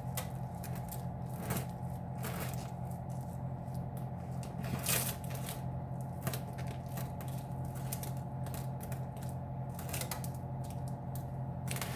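A sawdust-like pie filling being smeared and levelled in a pie crust: a run of irregular light scrapes and ticks, over a steady low hum.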